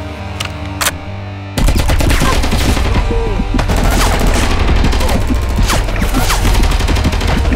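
Background music; about a second and a half in, a loud run of rapid shots like automatic gunfire starts over it.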